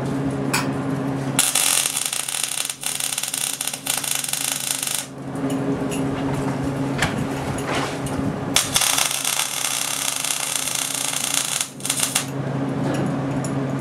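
MIG welder arc on steel plate, two welds of about three and a half seconds each with a dense crackling buzz that starts and stops sharply. A steady hum runs underneath, between and during the welds.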